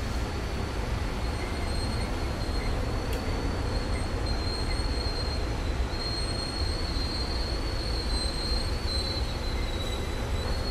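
A railroad train rolls by with a steady rumble and a thin, high wheel squeal that wavers and comes and goes, strongest past the middle.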